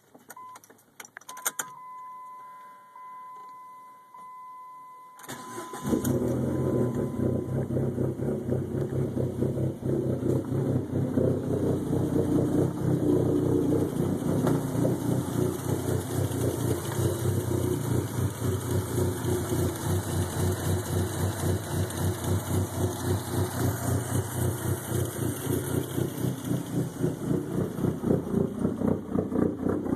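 Dodge SRT-4's turbocharged 2.4-litre four-cylinder, fitted with Crower stage 2 camshafts, cranking and catching about five seconds in, then idling with a steady rhythmic pulse. Before it starts, a few key clicks and a steady electronic chime from the car.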